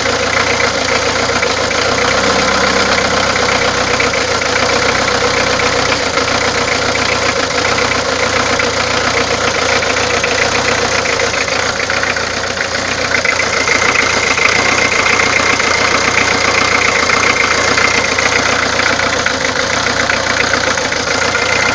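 Peugeot diesel engine idling with a fast, steady knocking clatter, the engine noise that is being diagnosed. A steady high whine joins about halfway through.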